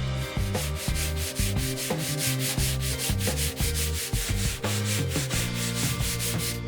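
Steel chisel blade being rubbed back and forth by hand on an abrasive sharpening surface, a quick, even rhythm of grating strokes as the edge is honed.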